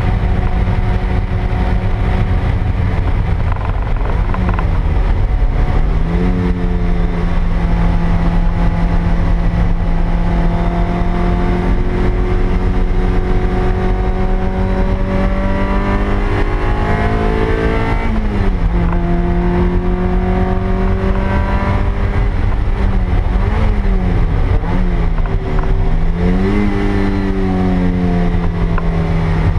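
The stock 1ZZ-FE 1.8-litre four-cylinder of a 2000 Toyota MR2 Spyder working hard on track, heard from inside the cabin. The engine note climbs slowly in pitch, then falls back sharply several times as the car lifts and changes gear, over a steady low rumble of road and wind noise.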